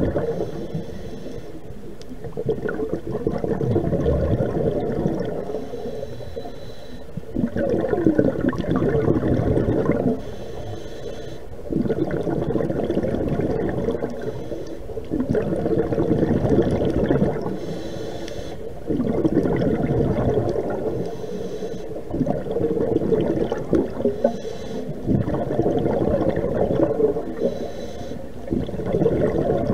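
A scuba diver breathing through a regulator, heard underwater: a hissing inhale, then a gurgling rush of exhaled bubbles, repeating every few seconds.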